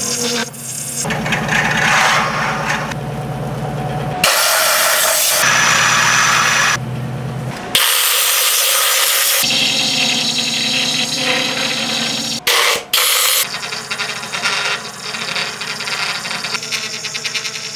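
A wood lathe spinning a cork-and-resin blank, heard in a string of short clips that cut abruptly from one to the next. A hand-held turning tool cuts and shaves the cork in some clips, and a drill-driven sanding pad sands inside the hollow vessel in others.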